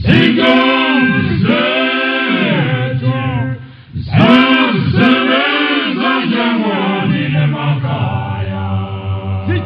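Male a cappella choir singing in close harmony in the Zulu isicathamiya style: two long phrases of held and gliding notes, with a short break about four seconds in.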